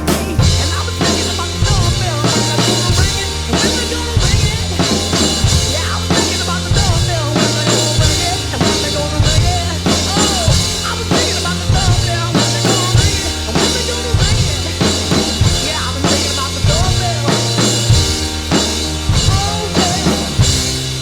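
Rock song with piano and a voice singing over a drum kit groove: bass drum on the beat and a snare backbeat.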